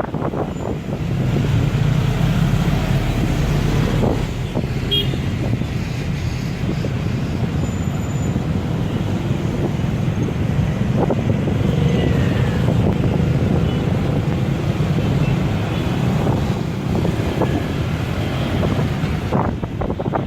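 Outdoor ambience with a steady low rumble of road traffic, recorded through a Samsung Galaxy S7 Edge phone's built-in microphone.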